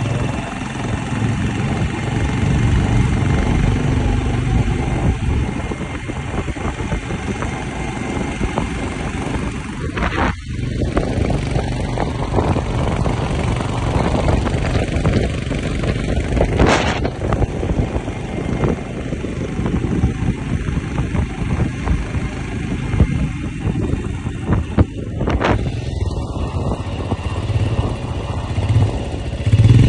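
Motorcycles running along a road, heard from a moving motorcycle: a steady engine rumble with road and wind noise, and a few sharp knocks about ten, seventeen and twenty-five seconds in.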